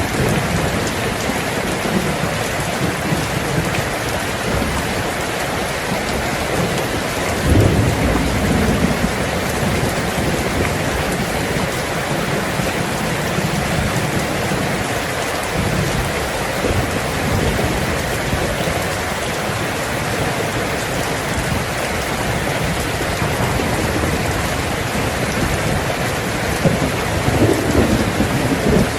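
Heavy rain falling on a tin roof as a steady hiss, with thunder rumbling low beneath it, strongest about seven seconds in and again near the end.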